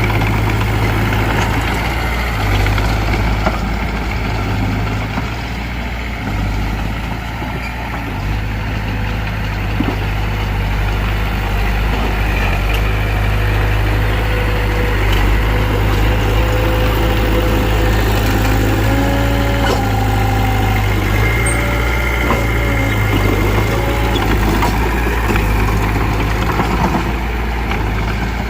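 Heavy diesel engines running steadily with a deep low drone: a Mitsubishi BD2F bulldozer at work alongside a dump truck. Faint thin whining tones come and go in the second half.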